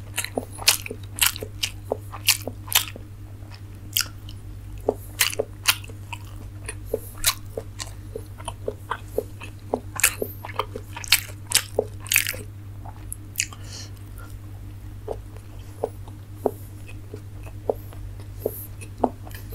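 A person chewing steamed momos close to the microphone: a string of sharp mouth clicks and smacks at an irregular pace, several a second, over a steady low hum.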